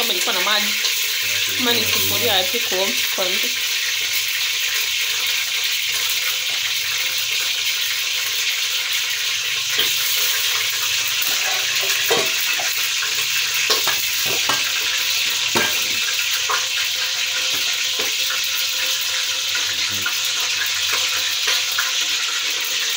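Hot cooking oil sizzling steadily in a saucepan, a constant hiss, with a few light clicks in the middle.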